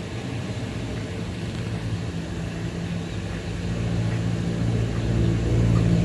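Brother inkjet printer running its print head cleaning cycle: a small motor inside whirring steadily, growing louder over the last few seconds.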